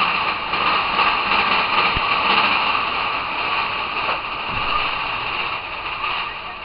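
Big Thunder Mountain mine-train roller coaster running through a rock tunnel: a steady rushing rumble of its wheels on the track, easing off a little near the end as the train comes out into the open.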